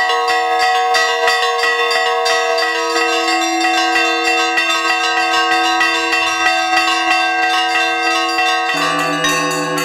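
Russian Orthodox church bells ringing: rapid strikes on small bells over the sustained hum of larger ones. About nine seconds in, a deeper bell sound takes over.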